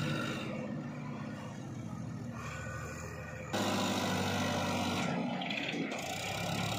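Sonalika DI 35 tractor's diesel engine running under load as it hauls a trolley heaped with sand over soft ground. The sound steps up abruptly in loudness about halfway through.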